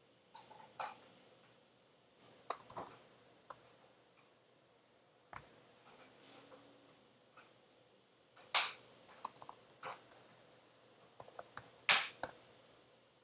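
Computer keyboard typing: scattered keystrokes coming in short clusters with pauses between them, a few strikes much louder than the rest.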